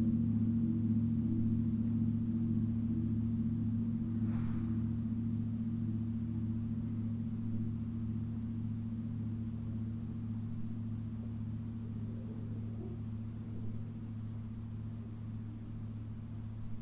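A Paiste gong's long sustained ring slowly dying away, its low steady tones pulsing gently against each other, until it cuts off suddenly at the very end.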